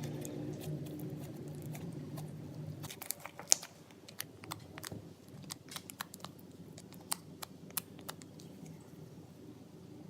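Homemade bubble gum slime being squeezed and poked, giving a run of small sharp clicks and pops. A low steady hum underneath stops about three seconds in.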